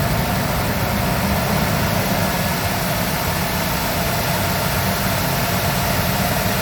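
Ford V10 engine of a 2006 E-series Econoline van held steady at a raised speed of about 2,500 rpm for a vacuum test, running with a cylinder 6 misfire.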